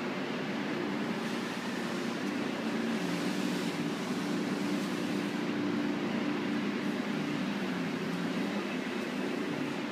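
Steady machine hum of a PP/PS plastic sheet extrusion line running: motors and fans giving several low, even tones over a constant hiss.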